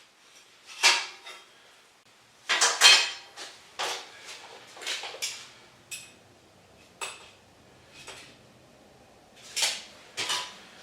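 Irregular metallic clanks and knocks as steel parts and tools are picked up, set down and fitted, about ten in all, the loudest cluster between two and three seconds in.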